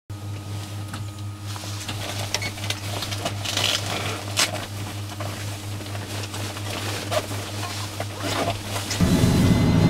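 Helicopter cockpit with its electrics switched on: a steady low hum and scattered clicks as switches on the instrument panel are worked. About nine seconds in, a much louder low mechanical sound sets in as the helicopter's engine starts.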